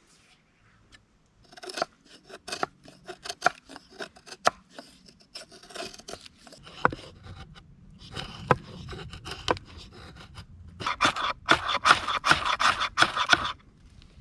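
Repeated sharp scraping strokes of fire-lighting work with a ferro rod and tinder wood, ending in a dense fast run of scrapes near the end.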